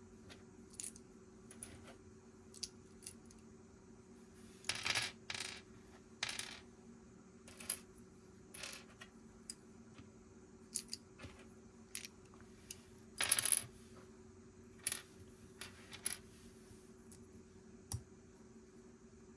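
Plastic Lego pieces clicking and rattling as they are handled and snapped together: a string of separate sharp clicks, with two short rattling clusters about five and thirteen seconds in.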